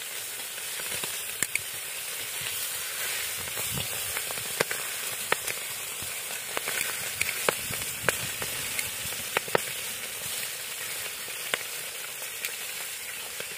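Chicken drumsticks sizzling as they fry in butter in a cast-iron kazan, a steady hiss dotted with scattered sharp pops and spits as the pieces are turned.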